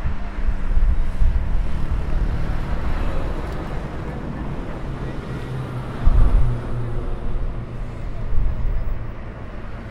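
Steady low rumble of distant jet aircraft engines running at the airfield. Gusts of wind buffet the microphone, most strongly about six seconds in.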